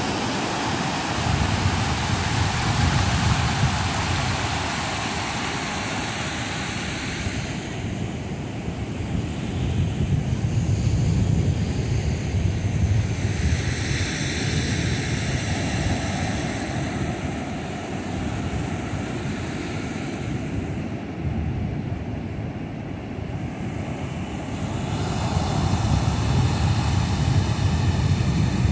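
Ocean surf breaking and washing up the shallow beach, a continuous rushing that swells and eases over several seconds, with wind buffeting the microphone into a low rumble.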